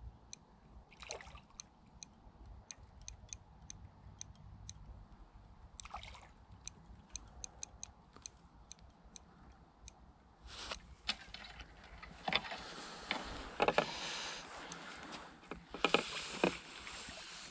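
Water splashing and sloshing close in at the lake margin, in bursts that grow louder from about ten seconds in, over a run of light ticks.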